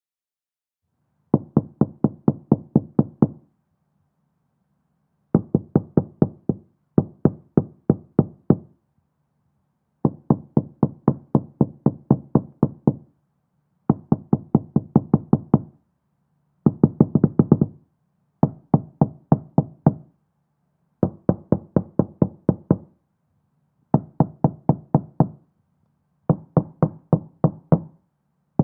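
Knocking on a door heard through the door from the other side, so the knocks are muffled. It comes in repeated rounds of quick knocks, about four or five a second, with short pauses between rounds.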